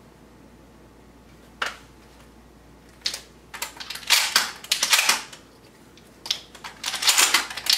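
Shotgun shells being pulled from a belt-mounted shell caddy and pushed into a shotgun's tube magazine through the loading port: a single sharp click about a second and a half in, then two runs of quick clicking and rattling of shells against the receiver, one from about three seconds in and one near the end.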